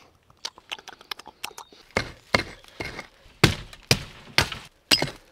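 A series of sharp woody knocks and cracks as a sapling stump is broken and worked loose at its base: light clicks at first, then stronger blows about two to three a second from about two seconds in.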